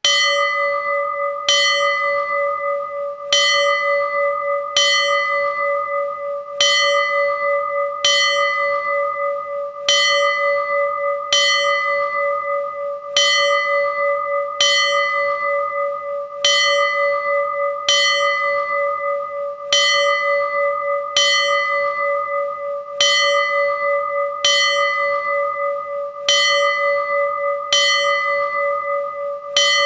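A temple bell struck again and again, about once every one and a half to two seconds. Each strike's bright upper ring fades quickly, while the low ringing tone carries on unbroken under the next strike with a slight wavering.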